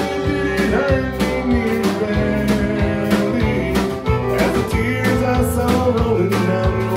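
Live country band playing a song: guitars and drums with a steady beat, and a male voice singing.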